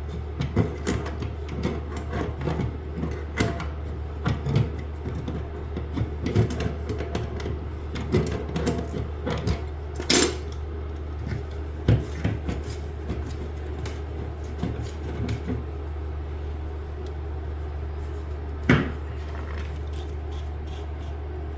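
Hand tools and plumbing fittings clicking, knocking and scraping irregularly as a toilet supply hose fitting is worked loose, with sharper knocks about ten, twelve and nineteen seconds in. A steady low hum runs underneath.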